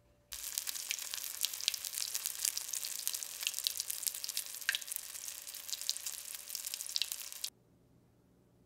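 Breaded chicken strips sizzling in hot oil in a cast-iron skillet: a dense crackle with many sharp pops. It starts suddenly just after the beginning and cuts off suddenly near the end.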